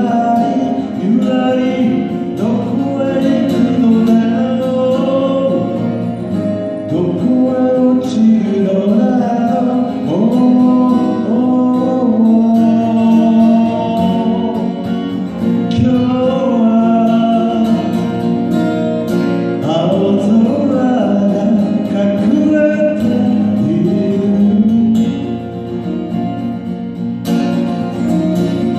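Man singing a Japanese folk song to his own Guild JF-55 jumbo acoustic guitar, played live through a stage PA.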